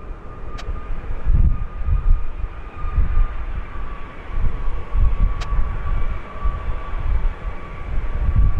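Gusty wind buffeting the microphone in loud, low rumbles, over the steady high whine of an arriving jet airliner's engines that dips slightly in pitch. Two sharp clicks, one near the start and one about five seconds in.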